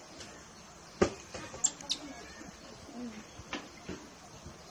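A sharp knock about a second in, then two brief high squeaks from a baby macaque and a few scattered clicks and rustles.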